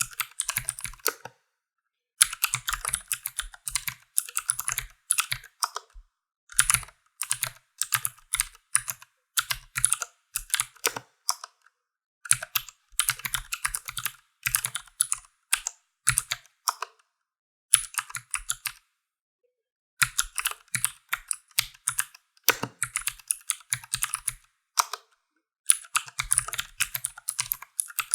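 Typing on a ZER0.9 computer keyboard: quick runs of sharp key clicks in bursts of a few seconds, broken by short pauses of about a second.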